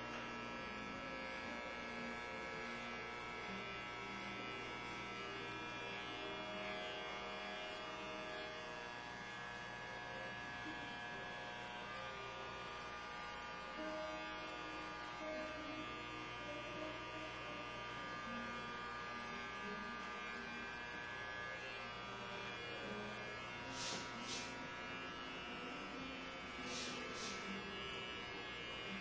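Electric hair clippers buzzing steadily through a flattop haircut, with a few short clicks near the end.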